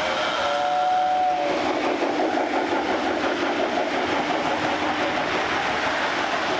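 A model steam-locomotive whistle blows a two-note chord for about a second near the start. Then comes the steady rolling rumble of Lionel O gauge trains running on three-rail track, as the locomotive and its freight cars pass close by.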